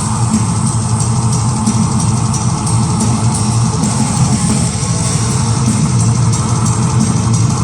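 Live metal band playing loud, dense music with distorted electric guitars and drums, coming back in full right at the start after a brief drop.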